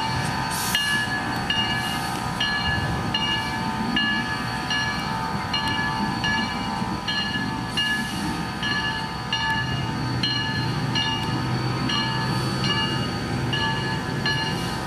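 Santa Cruz Portland Cement #2, a small saddle-tank steam locomotive, moving slowly with its bell ringing steadily, about one stroke every 0.8 seconds. Under the bell are a low rumble and the hiss of steam, with a few louder puffs of steam.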